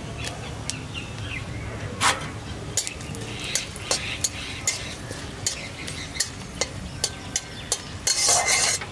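Cumin seeds and dried red chillies sizzling in hot oil and ghee in a large metal kadai, as a tadka is fried. A metal spatula stirring them clicks and scrapes against the pan again and again, with a louder scrape about eight seconds in.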